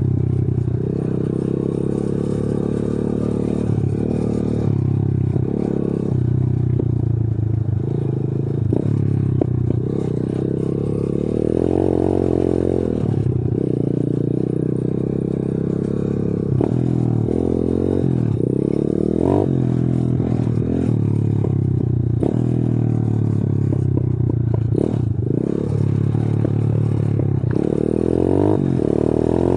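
125 cc pitbike's single-cylinder engine running while being ridden along a bumpy dirt trail, its note rising and falling again and again as the throttle is opened and closed. Short knocks and rattles from the bike over the bumps.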